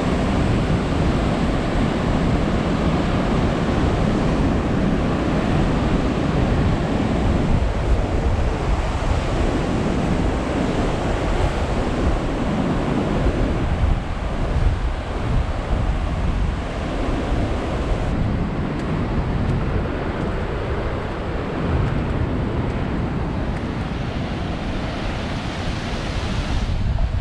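Heavy post-typhoon surf breaking against sea cliffs: a continuous wash of noise that swells and eases, with wind buffeting the microphone.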